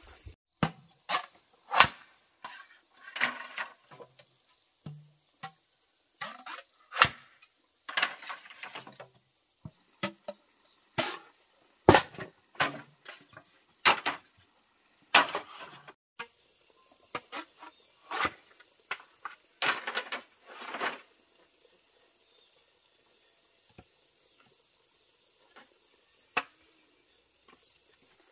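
Machete chopping at split bamboo poles: irregular sharp knocks, over a steady high drone of insects. The chopping stops about two-thirds of the way through, leaving the insect drone.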